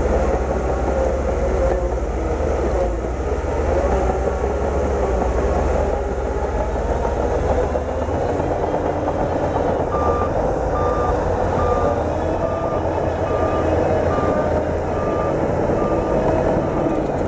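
Bulldozer's diesel engine running steadily under load, with a wavering drone and a deep rumble. About ten seconds in, a reverse alarm starts beeping, a short high beep a little faster than once a second.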